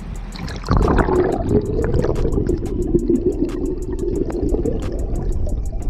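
A sudden plunge of the microphone under the river's surface about a second in, then a muffled underwater rush of flowing river water.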